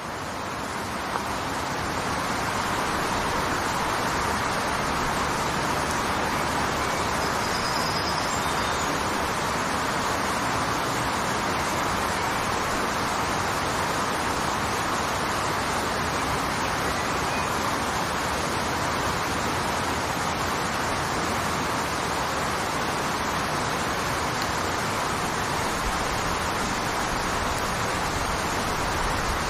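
Waterfall, water falling in a steady, even rush. It fades up over the first couple of seconds, then holds level throughout.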